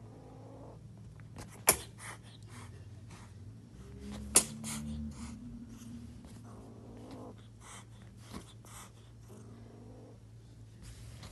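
Angry kitten growling, with scattered short sharp clicks and two loud sharp snaps, one just under two seconds in and one about four and a half seconds in.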